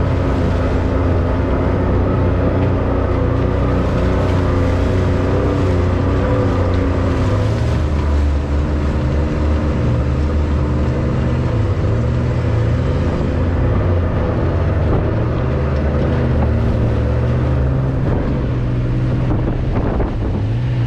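Side-by-side UTV engine running hard, steady at first, then its pitch rising and falling with the throttle from about halfway through.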